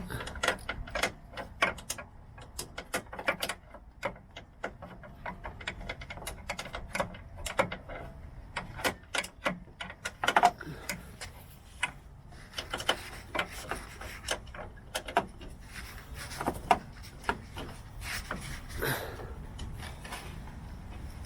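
Hand work with a small 1/4-inch ratchet and 8mm socket on the hood-latch fasteners: irregular clicks, ticks and light knocks of the ratchet and of metal and plastic parts being handled.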